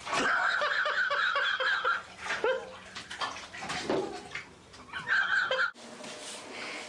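Water splashing and sloshing in a filled bathtub with a small child in it, loudest in the first two seconds, then in shorter bursts, with the child's voice now and then. The sound cuts off abruptly near the end.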